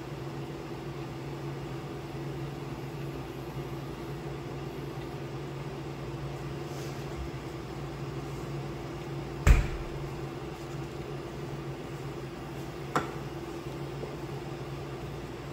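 Steady hum of a portable electric cooktop running under a stainless-steel saucepan. One sharp knock sounds a little past halfway, and a fainter click follows about three and a half seconds later.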